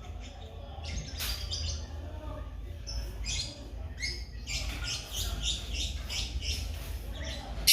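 African lovebirds chirping: many short, shrill calls in quick clusters, with a louder burst right at the end, over a low rumble.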